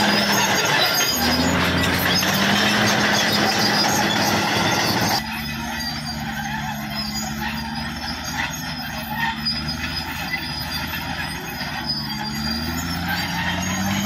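Caterpillar D6R crawler bulldozer working under load: the diesel engine running with its pitch rising and falling, over the metallic squeal and clatter of its steel tracks as the blade pushes gravel. About five seconds in, the sound drops suddenly and becomes quieter and more distant.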